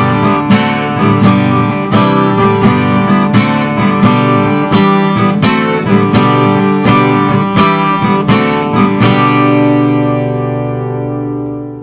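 Acoustic guitar strummed in a steady rhythm, ending on a last chord that is left to ring and fades away over the last few seconds.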